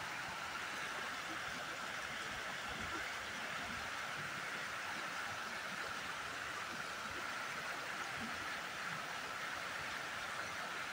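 Steady rush of flowing water from a small river, an even noise with no breaks.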